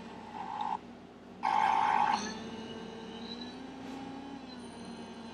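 Electronic loop playback from an iPhone looping app: a phone-like tone near 1 kHz sounding in separate pulses, a short one and then a longer, louder one, over a low hum that rises and falls in pitch.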